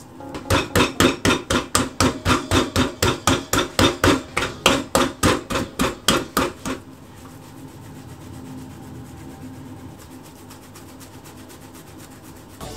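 Fists rapidly punching bread dough in a stainless steel bowl, about five quick thuds a second, stopping a little over halfway through.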